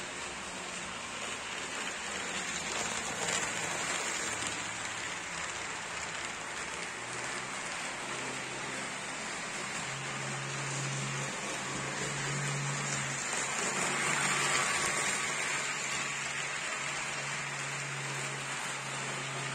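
HO-scale model train running on the layout's track: a steady rushing hiss of wheels and locomotive motors, swelling as it comes close about 3 and 14 seconds in, with a low hum under it.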